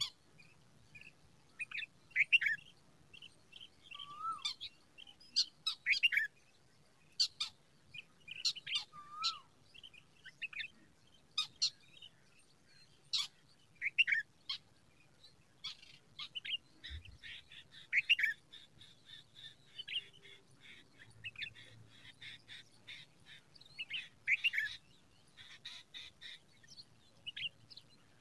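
Small birds chirping: many short, high chirps throughout, with two lower slurred whistled notes in the first ten seconds.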